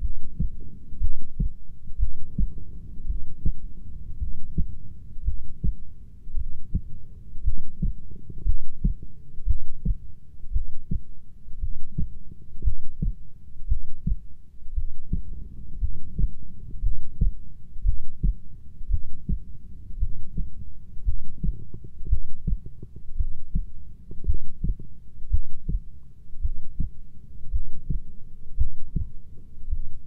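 Recorded heartbeat: low thumps repeating in a steady rhythm.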